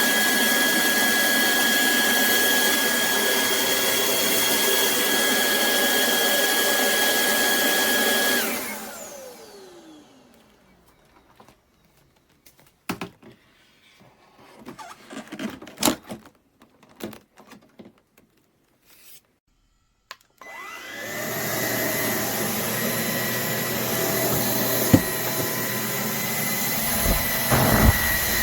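Cordless stick vacuum motor running with a steady high whine. It is switched off about eight seconds in and spins down. Scattered clicks and knocks follow, then the motor starts again about twenty seconds in and spins back up to a steady run.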